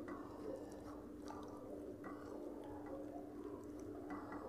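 Soft, wet squishing of rice being mixed by hand on steel plates, with chewing, over a steady low hum.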